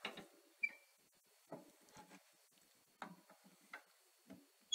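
Faint scattered clicks and light knocks from handling the cast-iron stove's front door as it is swung shut, with a couple of short metallic clinks, the brightest at the very end.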